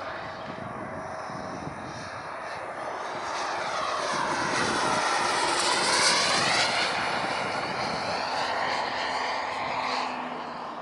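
Radio-controlled model jet making a pass: a steady rushing jet noise that swells to its loudest about six seconds in and then fades, with a swirling, phasing sweep as it goes by.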